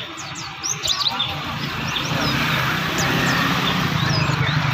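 Several caged songbirds chirping and twittering in short, quick sliding notes, over a steady low rumble that grows louder about halfway through.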